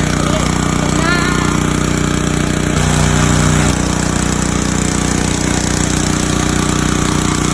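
Pressure washer engine running steadily, briefly louder for about a second around three seconds in.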